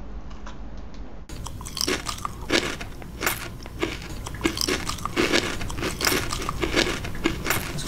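Someone biting into and chewing a Nestlé Crunch bar, milk chocolate with crisped rice. From about a second in come dense, irregular crisp crunches, several a second, with dull chewing thumps underneath.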